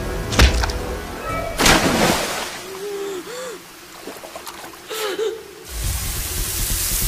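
Action-film soundtrack: background music under hits and splashes from a fight in shallow water, with a gagged woman's muffled whimpers. A steady hiss sets in near the end.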